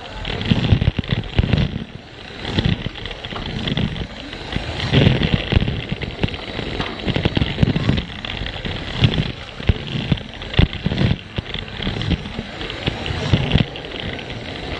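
Plarail toy train running on plastic track: its small electric motor and gears whir with a faint steady whine, while the wheels rattle and click irregularly over the rail joints.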